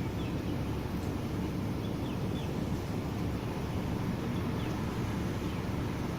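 Steady rain noise, mostly a low, even rumble, with a few faint, short, high chirps from a bird now and then.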